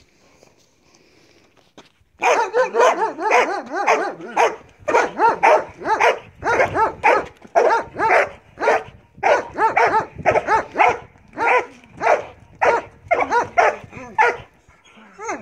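Belgian Malinois barking loudly and rapidly in a long string during bite-work training, starting about two seconds in, about two to three barks a second with a few short pauses.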